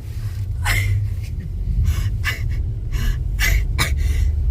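A person's short, sharp breaths and gasps in freezing air, about six of them at irregular intervals, over a steady low rumble.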